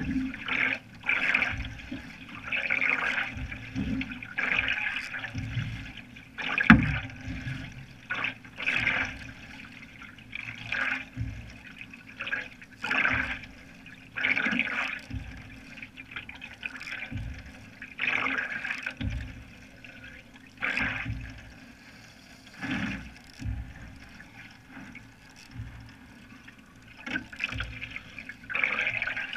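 Canoe paddle strokes in calm lake water: splashing and gurgling swells that come every second or two as the blade is pulled through. A single sharp knock about seven seconds in.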